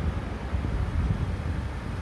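Low, irregular rumble of roadside ambience at a road intersection: traffic noise mixed with wind buffeting the microphone, with no level-crossing bell.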